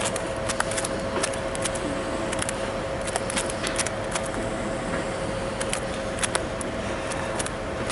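Scattered small clicks and ticks from handling a trout and the lure in a rubber landing net, over a steady humming tone.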